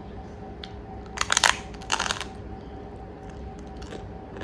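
Crab shell being cracked apart: two short bursts of crunching, about a second and two seconds in.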